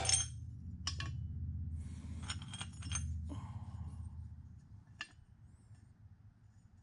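Short steel pipe halves clinking a few times as they are set against the edge of a cast-iron drill press table, over a low motor hum that dies away partway through.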